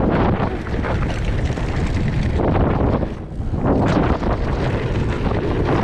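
Wind buffeting the microphone of a mountain biker's camera during a trail ride: a loud, steady rushing rumble that dips briefly about three seconds in.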